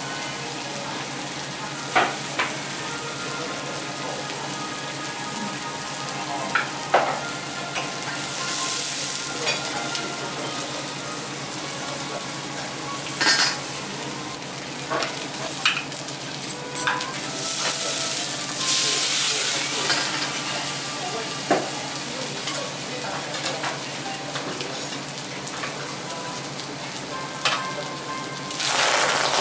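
Food sizzling steadily on a teppanyaki iron griddle, with sharp clicks of metal spatulas striking the plate now and then. The hissing swells louder three times, about nine seconds in, near the middle and again at the end.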